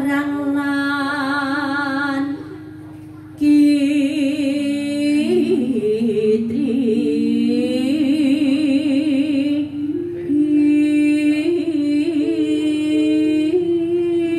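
A woman singing a wavering, ornamented melody into a microphone over steady held keyboard tones. The sound drops away briefly about two seconds in and comes back a second later.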